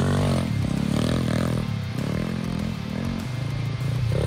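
Small dirt bike's engine revving up and down repeatedly as it is ridden over sand, its pitch rising and falling several times.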